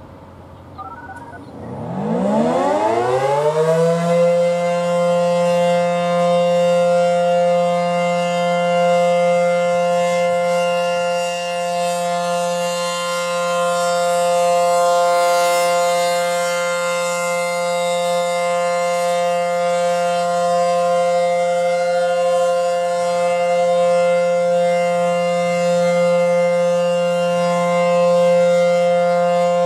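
ACA Howler rotating electromechanical siren winding up. Its pitch rises for about two seconds, then holds one steady tone, growing louder and softer as the horn rotates.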